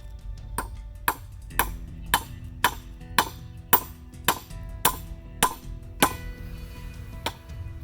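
Hammer driving nails into wooden sticks: about a dozen sharp, evenly spaced blows, roughly two a second, each ringing briefly. Acoustic background music plays underneath.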